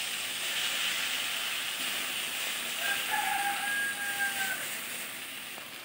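Water spinach, potatoes and hilsa head sizzling in a hot wok as a wooden spatula stirs them, the sizzle easing off near the end. About three seconds in, a faint steady tone from elsewhere sounds for about a second and a half.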